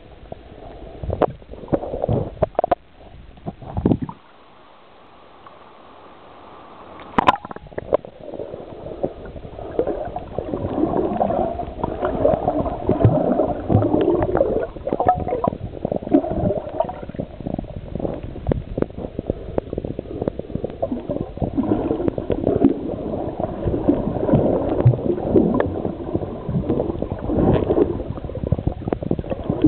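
Muffled underwater noise picked up by a submerged camera: low gurgling and rumbling water movement with scattered clicks and knocks. It drops quieter for a few seconds near the start, and a sharp click comes about seven seconds in.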